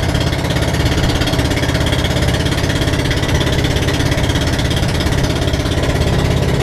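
Outrigger boat's engine running steadily while under way, a loud, rapid, even pulsing chug.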